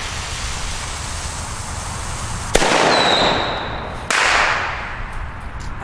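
Cube-shaped Kanonenschlag firecracker (a salute) exploding with a single sharp bang about two and a half seconds in, after a steady hiss. A second sudden burst of noise follows about a second and a half later.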